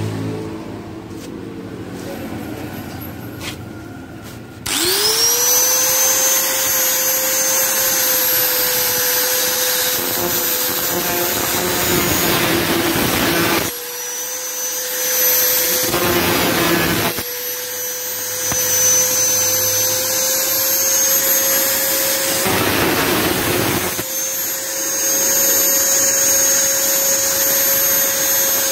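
Electric angle grinder with a thin cut-off disc switched on about five seconds in, spinning up quickly to a steady high whine. Three spells of rough grinding noise come as the disc cuts into a metal drink can.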